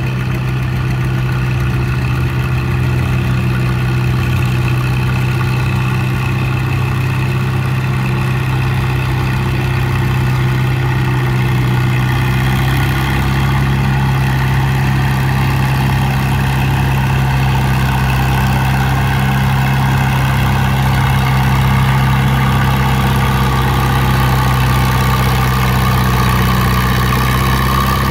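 Antique farm tractor engine running steadily under load as it pulls a weight-transfer sled, a low even engine note that grows a little louder as the tractor draws near.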